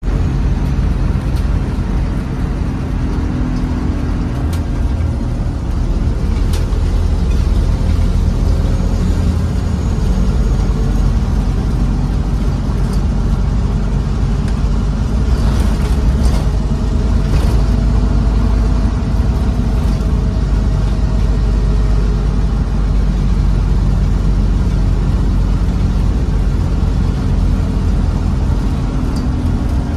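Scania N230UB OmniCity single-deck bus's diesel engine running with a steady low drone, heard from on board, with a few short rattles or clicks over it.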